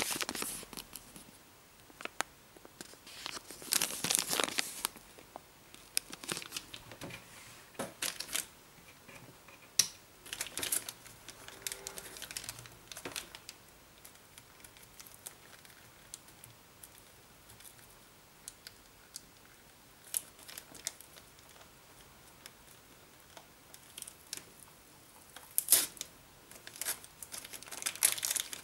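Clear plastic packaging bag crinkling in irregular bursts as it is opened and handled, with a few sharp small clicks and rustles as a steel wire tether is unwrapped.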